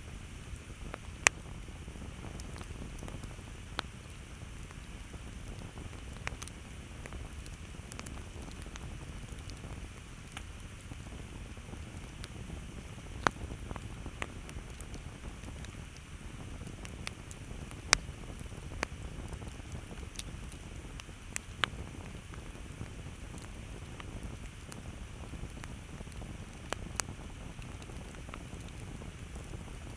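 Campfire crackling: irregular sharp pops and snaps, a few much louder than the rest, over a steady low hiss of the burning wood.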